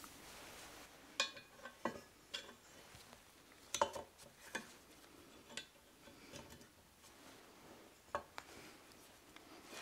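Light metal clicks and clinks, about eight spread unevenly over the seconds, the sharpest a little under four seconds in and again near eight, as a gearbox oil pump is set into the aluminium casing of a Toyota E154F transmission and its fixings are fitted.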